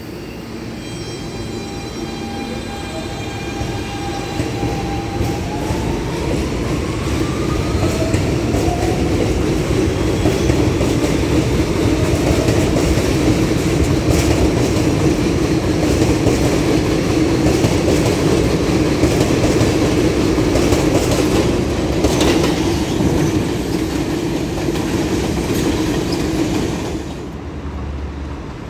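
Kawasaki-built R160B subway train with Siemens propulsion pulling out of the station. Its motors give a whine that rises in pitch as it gathers speed, then the wheels clatter as the cars run past. The sound drops off sharply near the end as the last car leaves.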